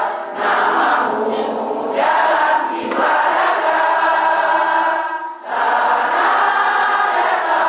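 A hall full of people singing a song together in unison, holding long steady notes, with a short pause for breath between phrases about five seconds in.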